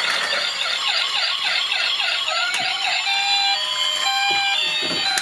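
Battery-powered toy police car's electronic siren: a fast warbling wail for about the first three seconds, then switching to a series of steady electronic tones that step between pitches.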